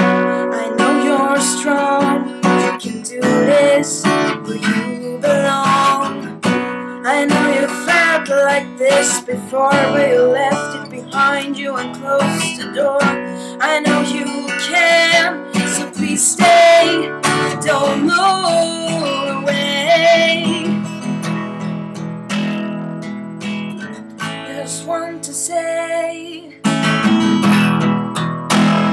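Acoustic guitar being strummed, playing the chords of a song.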